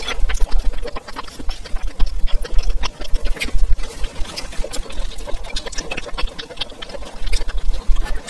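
Close-miked chewing and eating sounds: wet mouth smacks and clicks in a rapid, uneven run as stewed abalone, potato and rice are chewed.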